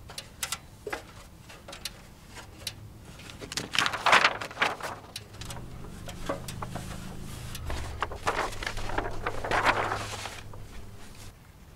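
Sheets of paper rustling and flapping as they are handled, with scattered clicks and taps; the loudest rustles come about four seconds in and again near the end. A low steady hum runs under the second half.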